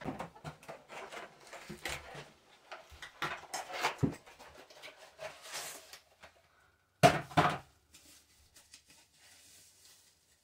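A small cardboard box being opened and a shower-door handle unwrapped from its paper: paper and cardboard rustling with handling clicks, and two loud sharp knocks about seven seconds in.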